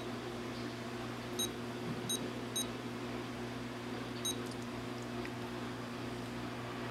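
Futaba 14SG radio transmitter beeping as its touch dial and keys are worked: about five short, high beeps at uneven intervals, each confirming a scroll step or key press while moving through the menu into the telemetry screen. A steady low hum runs underneath.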